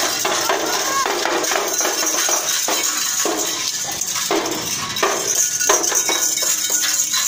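Street percussion by dancing children: a small round hand drum beaten in an uneven rhythm under a continuous jangle of metallic clinks, dense and clattering throughout.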